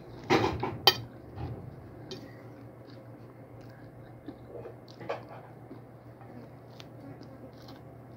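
Close-up chewing of fried dried fish: a louder burst of mouth noise and a sharp click in the first second, then quieter, scattered chewing clicks over a low steady hum.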